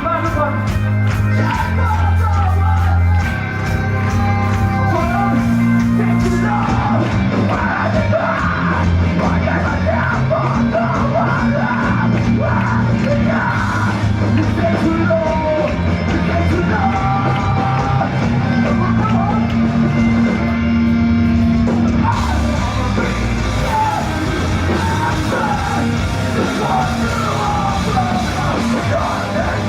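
Live hardcore band playing loud, with distorted guitars, bass and drums under yelled and sung vocals, in a large hall.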